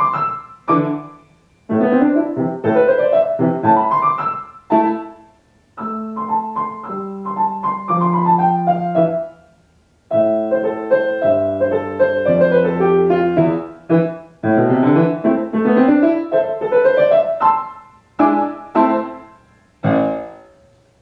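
Grand piano playing a short minor-key piece: rising five-finger runs and detached notes in phrases with brief breaks between them, with held low notes in the middle. It ends on a short, detached chord about twenty seconds in, the hand pushed off the keys.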